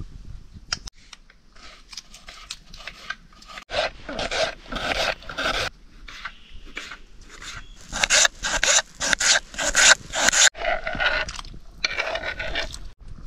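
Knife cutting food on a wooden cutting board: runs of quick rasping strokes, several a second, broken by short pauses.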